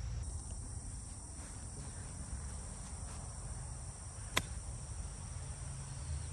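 A 54° wedge striking a golf ball once, a single sharp click about four seconds in. Steady high-pitched insect chirring, like crickets, runs under it.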